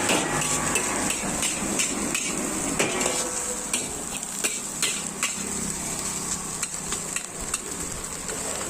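Cooking sounds: a run of irregular sharp knocks and taps of kitchen utensils, thicker in the first few seconds and sparser later, over a steady high hiss.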